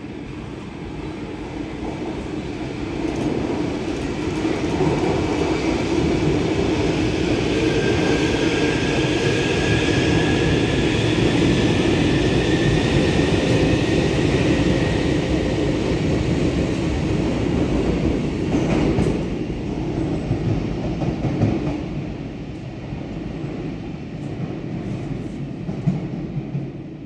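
Bombardier Movia 346 metro train running through an underground station without stopping: a low rumble that builds as it approaches, with a whine rising slightly in pitch as it passes, then fades away over the last few seconds. A single sharp click comes near the end.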